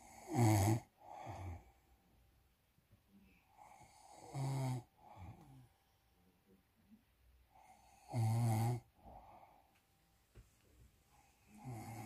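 A man snoring loudly in his sleep: three loud snores about four seconds apart, each followed by a quieter breath.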